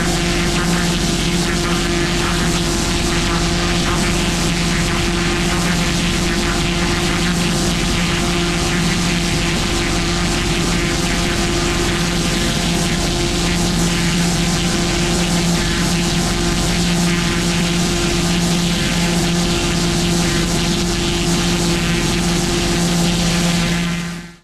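Petrol-engined pressure washer running steadily at full load, its turbo nozzle spraying water onto block paving. It cuts out right at the end.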